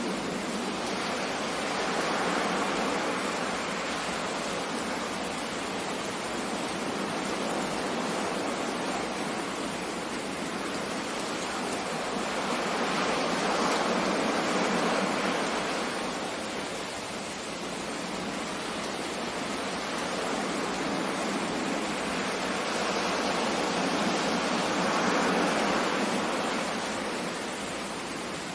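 Sea waves: a steady rush of surf that swells and eases about every eleven seconds, with no deep rumble beneath it.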